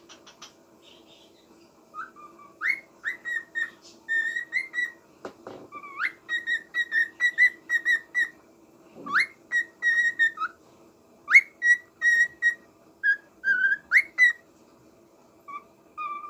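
Small pet parrot whistling a song: phrases that each open with a quick rising swoop and run into a string of short, even whistled notes, repeated several times.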